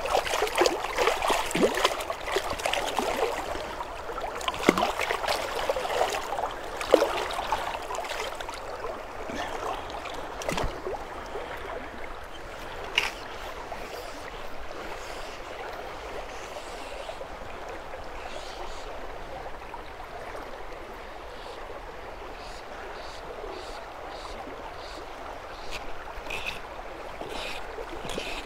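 Water splashing around hands in a shallow river, with a few sharp splashes in the first several seconds, then the steady sound of the flowing river current.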